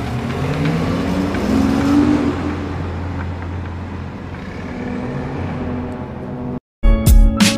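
BMW i8 sports car accelerating away, its engine note rising to a peak about two seconds in, then fading as it draws off. Near the end the sound cuts out briefly and music starts.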